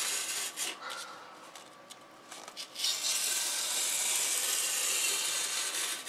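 A knife blade drawn through cardboard with a rasping scrape as strips are sliced off. The scraping dies down about a second in and picks up again a second or so later, steady after that.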